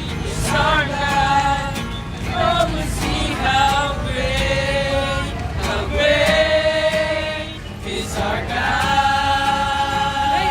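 A choir singing a slow song in long held notes, phrase after phrase with short breaths between.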